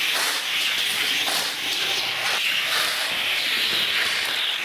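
Toy car rolling down a plastic race track: a steady rushing hiss of small wheels running along the track.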